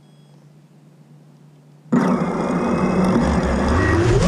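Racing quadcopter's brushless motors (Brother Hobby 2207 1660KV on a 6S pack, tri-blade 5-inch props) spinning up suddenly about two seconds in, with a steady whine, heard from the camera on the frame. The pitch begins to rise near the end as throttle comes up for take-off.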